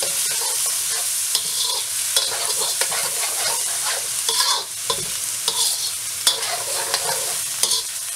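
Egg, prawns and tofu sizzling in a hot wok while a metal spatula stirs and scrapes them, with frequent short scrapes against the pan over a steady sizzle.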